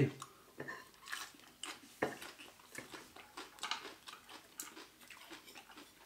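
Eating at the table: chewing of raw vegetables and seafood salad, with fork and spoon clicking against the plates; the sharpest click comes about two seconds in.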